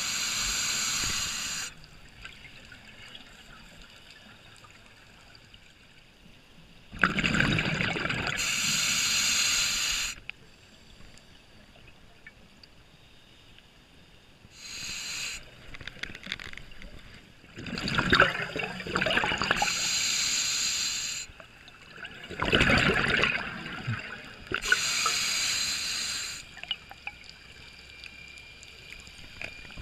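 Scuba diver breathing through a regulator, heard underwater: a hissing inhalation alternates with a burst of bubbling exhalation several times, with a low water hush between breaths.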